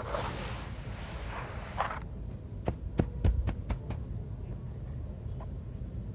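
Soft sand-cement with white stones crumbling in water, with a crackling hiss for about two seconds. Then comes a quick run of sharp clicks, then only a low hum.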